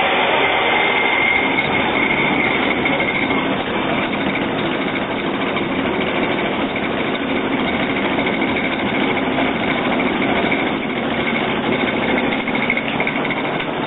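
Corn peeling and grinding mill running steadily: a loud, even mechanical noise with a faint high whine that comes and goes.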